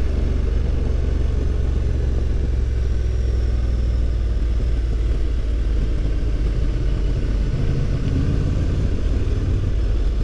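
Honda Transalp motorcycle being ridden: a steady, low rumble of engine and road noise heard from on the bike.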